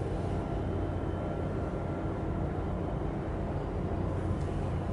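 A steady low rumble with a faint hum underneath, unchanging throughout.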